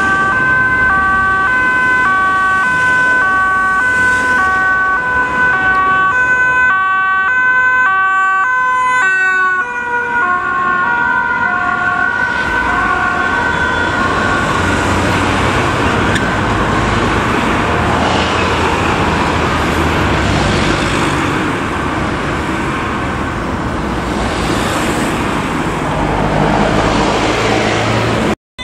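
Two-tone hi-lo siren of unmarked Dutch police cars on an emergency run, switching between two notes about twice a second over a steady high tone. About halfway through, the siren fades under the noise of engines and road traffic as the cars move off.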